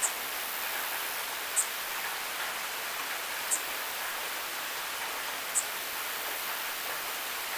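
Rainwater in a rain gutter, a steady hiss of running and falling water. Over it, a single drop lands with a sharp, high tick about every two seconds, four times.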